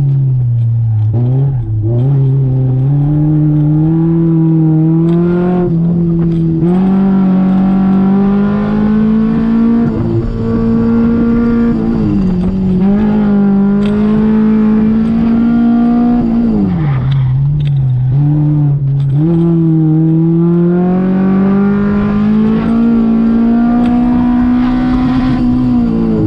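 A 1989 Honda Civic Si's four-cylinder engine, heard from inside the cabin, working hard through an autocross run. Its pitch climbs steadily under throttle and drops sharply several times as the driver lifts, brakes or shifts.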